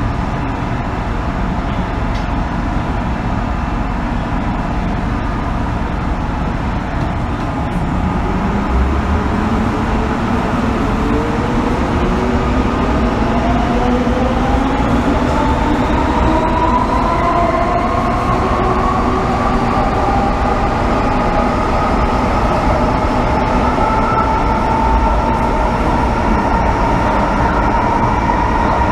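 MTR M-Train metro car heard from inside, with a steady running rumble. About eight seconds in, the traction motors set up a whine of several tones that climbs steadily in pitch as the train pulls away and accelerates, levelling off near the end.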